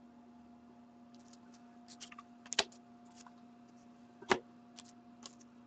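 Trading cards being handled and sorted by hand: scattered light clicks and rustles, with two sharper card taps, one about halfway through and one near four seconds in. A faint steady electrical hum sits underneath.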